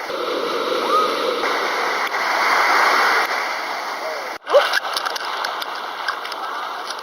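Ocean surf washing onto a beach, a steady rush of noise, broken by an abrupt cut about four and a half seconds in.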